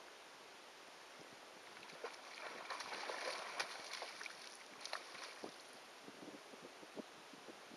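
A hooked fish thrashing at the water's surface close by, a couple of seconds of splashing and spattering, then a few lighter single splashes.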